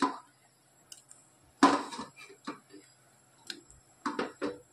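A few separate clinks and knocks of kitchenware against a metal cooking pot, the loudest about a second and a half in.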